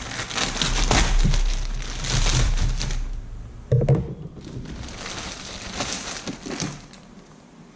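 Packaging crinkling and crackling as a parcel is torn open and unpacked by hand, with a thump a little before the middle.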